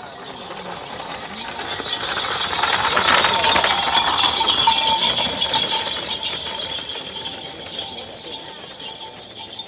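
A pair of racing water buffalo pulling a jockey's cart gallop past with a dense clatter of hooves and cart and a ringing jingle. It swells to its loudest about three to five seconds in as they pass, then fades as they race away down the track.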